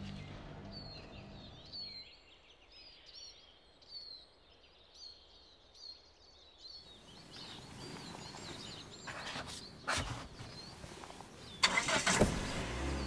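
Birds chirping over faint outdoor ambience as background music fades out. About seven seconds in, a wider outdoor noise like passing traffic rises, with a few sharp knocks and a louder clatter near the end.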